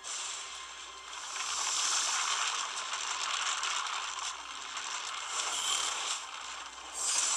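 Supernatural sound effect: a loud rushing, crackling noise, like swirling wind, that starts suddenly and swells again near the end.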